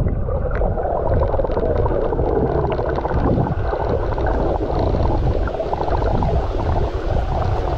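Underwater sound picked up by a camera submerged in shallow sea water: a muffled, steady rush and gurgle of moving water, with scattered small clicks.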